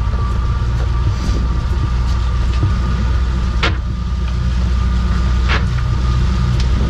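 Boat's outboard engine running steadily underway: a low rumble with a thin steady whine above it. Two short sharp knocks come about three and a half and five and a half seconds in.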